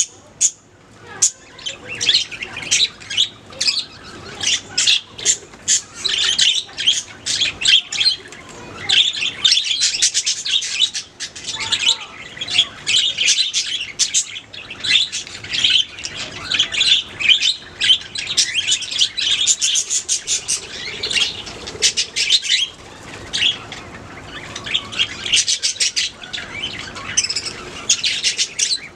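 Budgerigars chirping and warbling, a busy run of rapid high chirps throughout.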